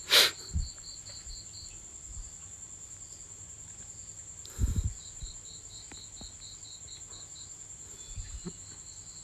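Cricket chirping in an even pulsed trill of about four chirps a second, over a continuous high whine. A sharp click comes right at the start and a dull thump about halfway through.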